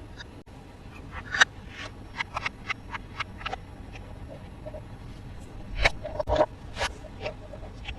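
Toy packaging being handled and opened by hand: a series of sharp taps, clicks and light scrapes, with louder knocks about a second and a half in and just before six seconds.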